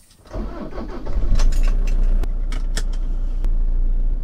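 Car engine starting within the first second and then running steadily with a low rumble, with a few sharp clicks over it.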